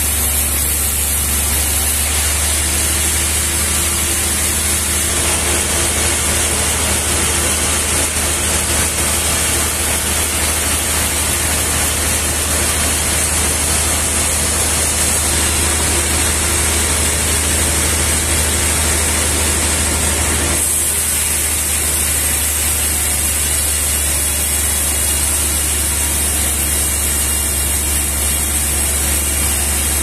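Large stationary band sawmill running while a big trembesi log is sawn, a steady low hum under a broad hiss. About two-thirds of the way through, the sound turns harsher and brighter.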